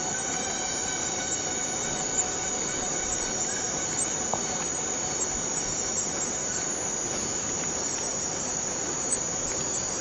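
Borneo rainforest cicadas in a dense, unbroken chorus: several steady high tones layered over an even drone, with a few faint clicks.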